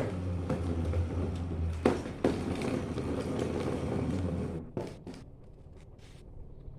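A motor running steadily with a low hum, with two sharp knocks about two seconds in. It stops after about four and a half seconds.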